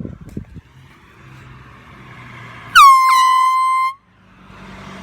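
Handheld canned air horns blasted about three seconds in, at a car driving past. One loud blast drops sharply in pitch at the start and then holds steady. A second, higher horn joins a moment later, and both cut off together after about a second. Before the blast, the noise of the approaching car swells.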